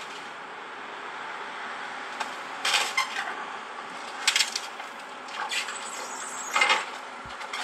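Steady mechanical running noise with three brief clattering bursts, about 2.7, 4.3 and 6.7 seconds in.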